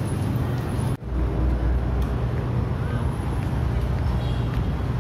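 Street traffic noise from a busy road: a steady low rumble of passing cars, broken by a sudden brief drop about a second in.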